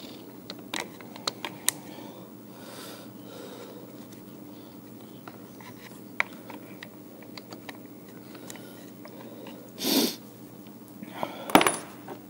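Small metal tools clicking and tapping against a plastic recoil starter housing as a pick and needle-nose pliers work a pull cord toward its exit hole, over a steady low hum. Near the end come two loud, short huffs of breath, the second with a clatter of the tools.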